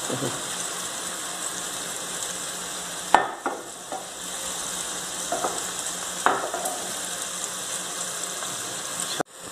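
Olive oil and sliced tomato, onion and pepper sizzling in a very hot clay pot, a steady hiss. A sharp knock comes about three seconds in and another about six seconds in, and the sound cuts out briefly near the end.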